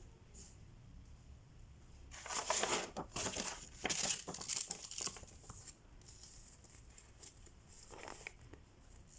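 Crinkling, rasping sounds of cross-stitch materials being handled, in a run of bursts lasting about three seconds, then one short burst near the end.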